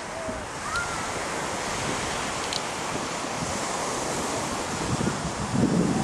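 Surf washing onto a sandy beach, a steady rushing of waves, with wind buffeting the microphone in gusts that grow stronger near the end.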